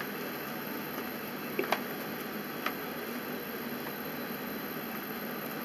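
Steady background hiss with a few light clicks of a fork against a plastic takeout tray, two close together a little over a second and a half in and one more about a second later.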